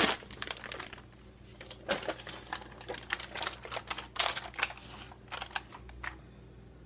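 Sheet of paper crinkling and rustling as it is handled, in a run of irregular sharp crackles that stops about six seconds in.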